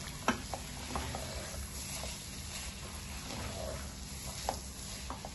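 Wooden spatula stirring dal as it fries in a stainless steel pot, with a few sharp knocks of the spatula against the metal over a light sizzle and a low steady hum.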